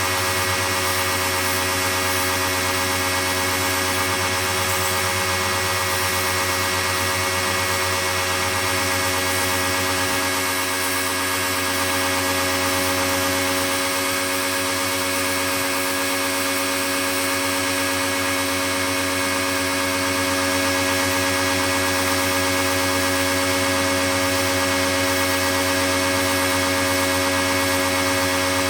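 Pro-Kleen 1600 pressure washer running steadily, its motor and pump holding one constant pitch.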